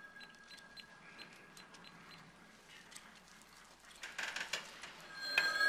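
Faint small ticks and clicks of pens and paper, with a short burst of paper rustling about four seconds in. Near the end a steady ringing tone comes in.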